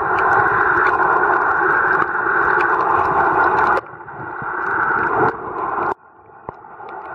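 Muffled underwater rushing noise picked up by a camera in its waterproof housing while snorkelling, with faint scattered clicks. The noise drops off suddenly twice and swells back up.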